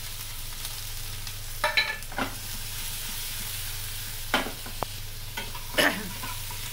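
Chopped onion sizzling in hot ghee in a nonstick frying pan, with a spatula stirring and scraping against the pan several times.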